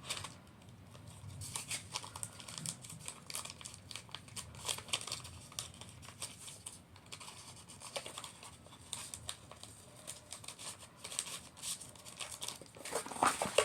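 Paper and plastic packaging being handled, crinkling and rustling in irregular bursts with scattered small clicks and taps.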